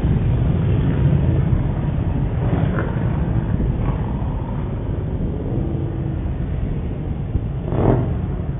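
Motorcycle and car engines passing in traffic: a steady low rumble with a brief louder swell near the end, heard through a CCTV camera's microphone.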